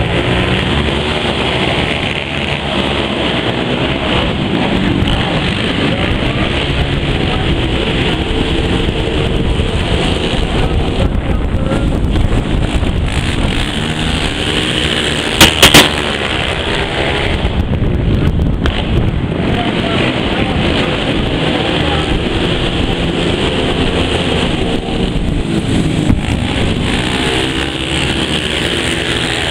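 Racing quad ATV engines running and revving around a dirt track, their pitch rising and falling as the riders accelerate and back off. About halfway through come three sharp, loud pops close together.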